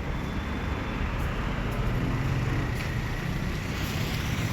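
Road traffic rumbling steadily, with a vehicle passing that swells the noise slightly about two seconds in.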